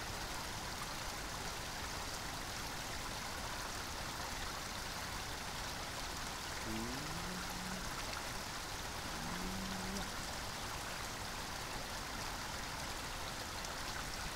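Steady rush of stream water flowing. About halfway through come two faint, brief pitched sounds, each rising and then holding.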